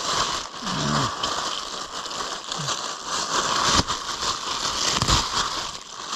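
Crinkling and crackling of a wet Mylar balloon being handled and crumpled, with water inside it. There are two sharp knocks, about four and five seconds in.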